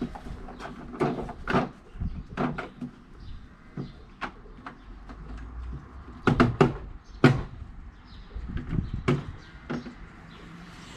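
Irregular clicks and knocks of a tool and the car's plastic boot trim being handled while a 7mm trim screw is undone, with a bunch of sharper knocks about six to seven seconds in.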